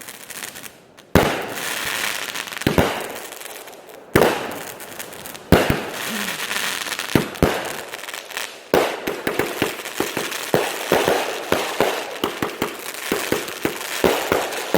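Consumer firework (Blond Joy) going off: sharp bangs a second or so apart, each followed by a crackling hiss, then from about nine seconds in a fast, dense run of pops and crackles.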